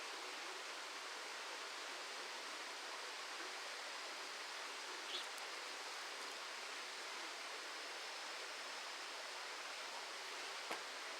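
Steady, even hiss of outdoor background noise, with two faint short clicks, one about five seconds in and one near the end.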